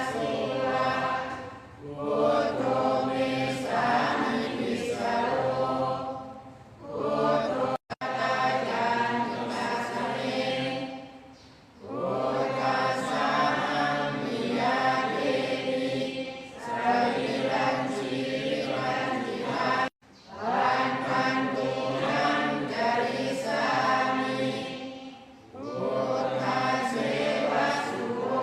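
A group of voices chanting Pali verses in unison during Thai Buddhist evening chanting, in long phrases with a breath pause every few seconds. The sound cuts out for an instant twice.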